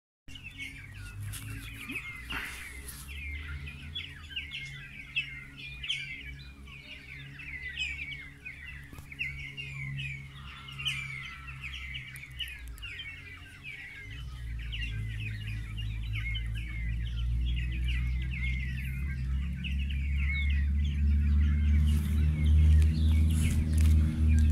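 Small birds chirping continuously, many short high chirps a second. Under them a low hum builds steadily louder through the second half.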